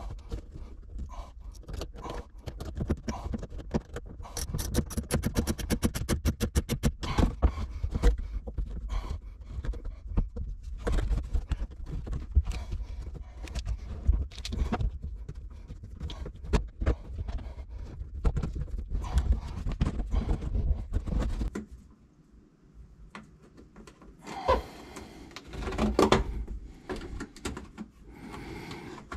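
Close handling noise of hands fitting and routing a corrugated plastic drain hose inside a jet ski hull: scraping, rubbing and irregular knocks over a low rumble, with a quick run of clicks between about 4 and 7 seconds in. The rumble drops out about three-quarters of the way through, and a few louder knocks follow.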